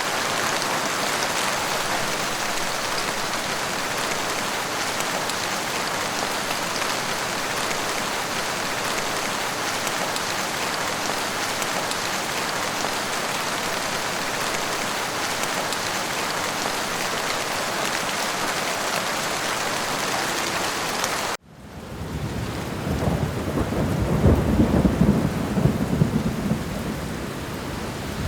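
Steady rain falling as an even hiss. About 21 seconds in it cuts to a second rain recording, in which a deep rumble of thunder swells and then fades.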